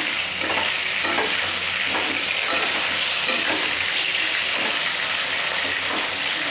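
Chicken pieces frying in hot oil in a non-stick kadai, with a steady sizzle, stirred and turned with a metal spatula that scrapes and taps the pan now and then. The chicken is browning at the end of its frying stage.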